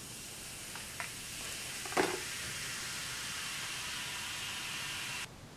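Silver nitrate bath fizzing steadily as baking soda is poured in, the soda reacting with the excess nitric acid to raise the bath's pH. A brief knock comes about two seconds in, and the fizz cuts off suddenly near the end.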